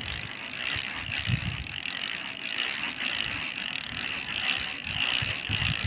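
Spinning fishing reel being cranked, a steady grainy whirring, as line is wound in on a fish.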